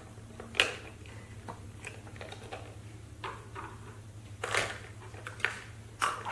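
Scattered light knocks and clicks of toy plastic pieces being handled: pretend food set into small plastic pots on a toy stove, and plastic lids put on them. The louder knocks come about four and a half seconds in and near the end, over a low steady hum.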